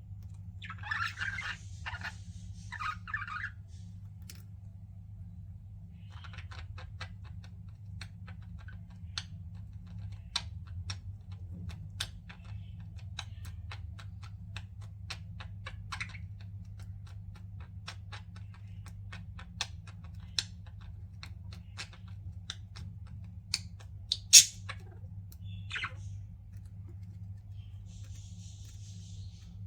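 Pet budgerigars chattering briefly in the first few seconds, followed by a long run of small sharp clicks and taps with one loud click near the end, over a steady low hum.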